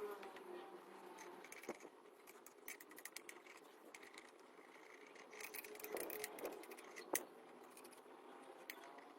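Quiet, scattered small clicks, taps and short scrapes of hand work on parts, with a cluster of handling noise about six seconds in and a sharper tap just after.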